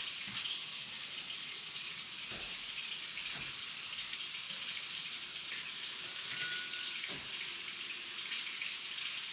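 Kitchen tap running steadily, a hiss of flowing water, with a few faint knocks.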